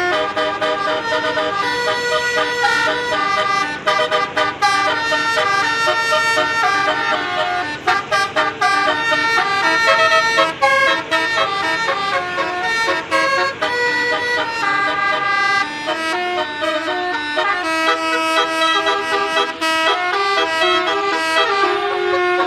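Indonesian bus 'basuri telolet' multi-tone horn playing quick tunes, stepping from note to note almost without a break.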